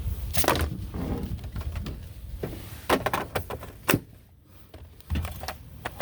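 Handling clicks and knocks of a cordless power tool and its battery pack being pulled out and snapped back in while the tool won't power up.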